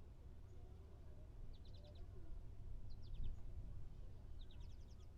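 A small bird calls three times, each call a quick run of four or five high chirps, about a second apart. Under it is the low, steady rumble of outdoor parking-lot ambience.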